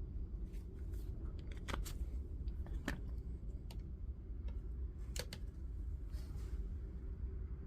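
A few irregular sharp clicks and taps from small tools and parts being handled during a bench repair, over a steady low hum.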